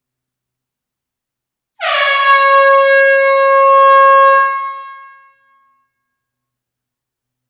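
Air horn in an enclosed hall sounding one steady blast of about three seconds, starting about two seconds in. The note dips slightly in pitch at the onset, holds steady, then dies away.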